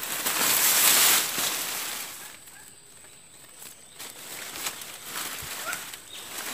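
Grass and weeds rustling as hands push through the vegetation around a wire-mesh fish trap sunk in a shallow ditch. The rustling is loudest in the first two seconds, then quieter rustles and small knocks follow.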